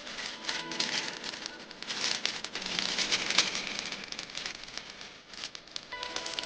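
Irregular crackling and crinkling of material being handled, such as wrapping or thin packaging, loudest in the middle. Soft background music comes in faintly about a second in and again near the end.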